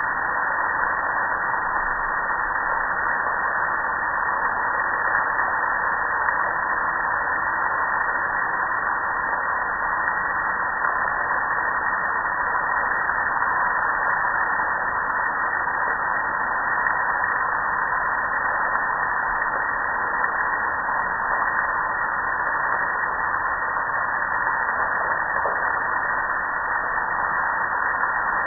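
Water spraying steadily onto a soapy gas grill, an unbroken hiss.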